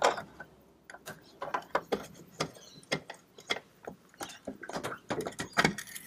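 Irregular clicks and scrapes of a screwdriver turning out the Phillips head screws that hold a boat steering helm's bezel to the dash, with a denser run of knocks near the end as the bezel is handled.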